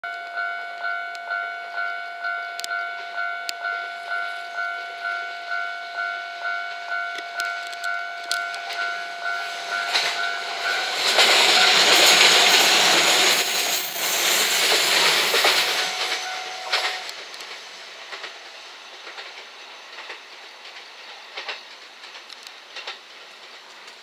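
A level-crossing warning bell rings, an electronic ding pulsing about twice a second. A JR West 227 series three-car electric train then passes close by, its wheels and running gear rushing loud for about six seconds before fading. The bell stops as the train clears, leaving faint wheel clicks.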